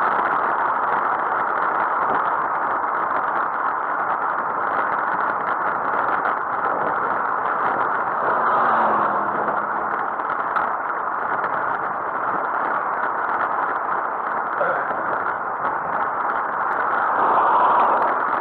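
Steady rush of wind and road noise on a camera riding on a moving bicycle.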